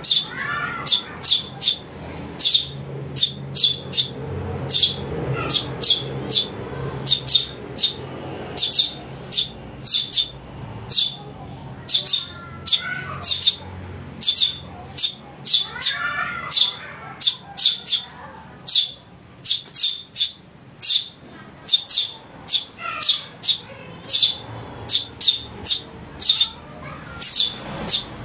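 Eurasian tree sparrow chicks calling, a steady run of short, high-pitched chirps, roughly two a second.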